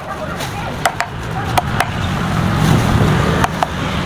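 A handful of sharp, irregular knocks or taps, about five in all, two of them close together near the end, over a steady background noise.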